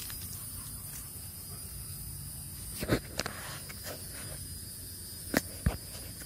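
Steady high-pitched insect chirring, with a few sharp clicks: a pair about three seconds in and another pair about a second before the end.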